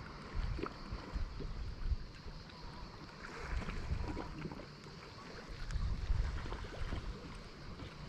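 Wind buffeting the microphone in uneven gusts, over the soft wash of small waves lapping against a stone quay.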